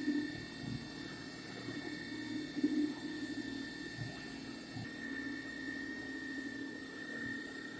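CNC milling machine making a roughing cut: a steady high whine over a rough, fluctuating lower cutting noise.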